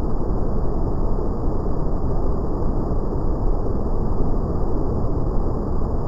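Waterfall: fast, brown river water pouring over stepped rock ledges in a steady, deep, unbroken rush.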